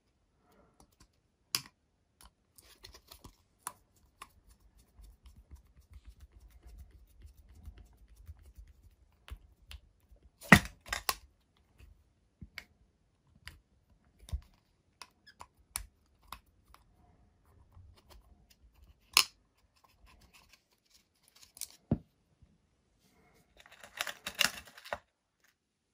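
Handling noise from a 90 mm EDF fan unit's shroud being worked on by hand: scattered light clicks and taps, a sharper knock about ten and a half seconds in, and a short burst of scraping and rattling near the end.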